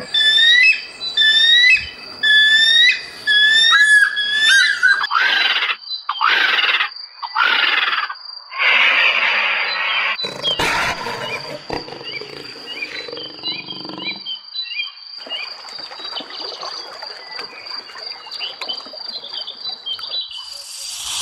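Wild animal calls: a run of short pitched calls in the first few seconds, followed by harsher, rasping calls and growls.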